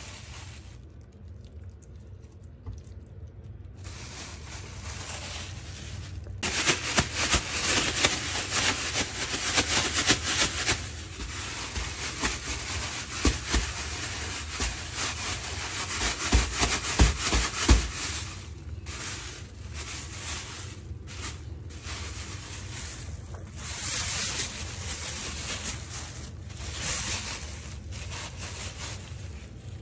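Thin plastic grocery bag rustling and crinkling as chicken pieces are worked around in flour inside it. About halfway through, the bag is twisted shut and shaken, with a few dull thumps of the chicken inside.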